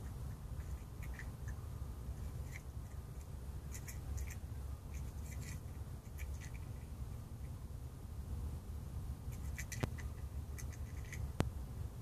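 Gull pecking at a mussel shell on the dock: scattered light taps and scrapes of bill against shell, with two sharper clicks near the end, over a steady low rumble.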